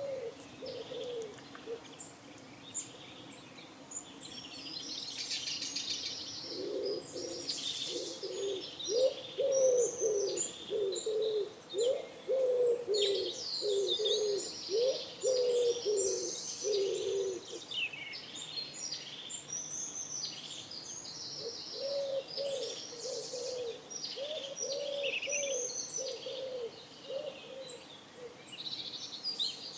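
Pigeons cooing in two long runs of repeated low coos, with a pause between them, over steady high chirping of small songbirds.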